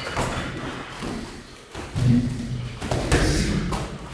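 Dull thuds of Muay Thai sparring: gloved strikes landing and bare feet hitting a foam mat, loudest about two and three seconds in.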